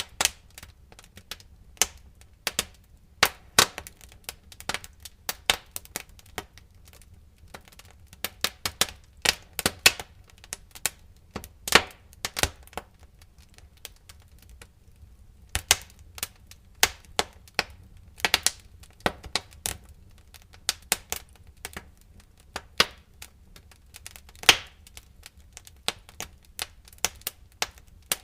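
Wood fire crackling in a fireplace: irregular sharp pops and snaps, some loud, over a faint low rumble, with a brief lull of a couple of seconds about halfway through.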